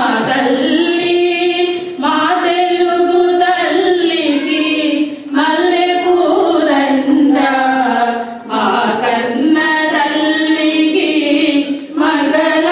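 A group of women singing a song together in unison, in held phrases of about three seconds with short breaks for breath.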